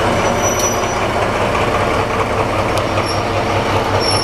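Class 202 (ex-DR V100) diesel-hydraulic locomotive passing close by, its diesel engine running with a steady low throb.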